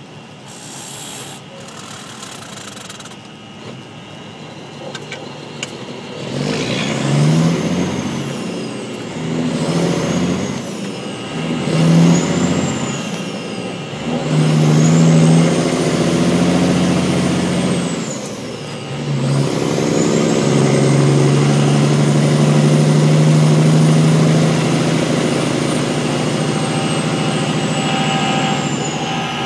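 Peterbilt 379 truck's diesel engine heard from the cab, pulling away and climbing in pitch, dropping back at each of several upshifts, then running steadily at cruising speed. A high whistle rises and falls with each gear.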